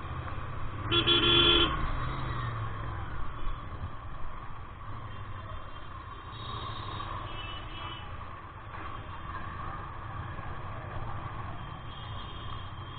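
Road traffic heard on the move: a steady low engine rumble and road noise, a loud vehicle horn blast about a second in, and fainter horns later.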